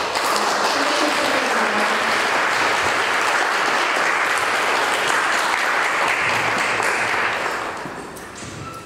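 Crowd applauding: clapping that starts abruptly, holds steady for about seven seconds, then dies away over the last second or so.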